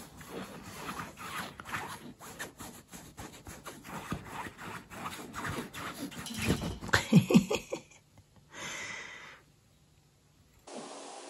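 Domestic cat making short meows and chirps amid small clicks and knocks, with the loudest calls about seven seconds in.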